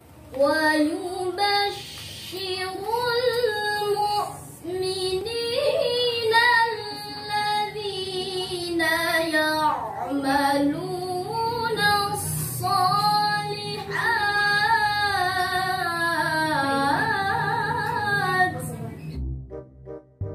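A young woman singing solo in a high voice, a slow, ornamented melody with a wavering vibrato. About 19 seconds in, the singing stops and short, bouncy intro music begins.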